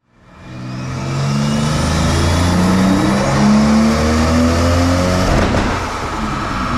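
Toyota Supra's 2JZ turbocharged straight-six running on a chassis dyno, fading in and revving, its pitch climbing through the middle before dropping back about five and a half seconds in.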